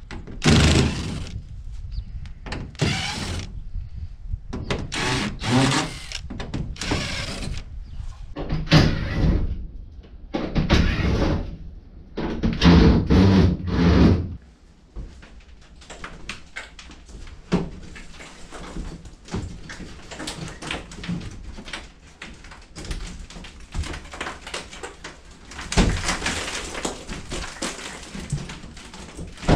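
Cordless drill backing out the screws of a camper's aluminium window frame in about seven short bursts. After that come scattered knocks, scrapes and rattles of the window frame being worked loose from the wall.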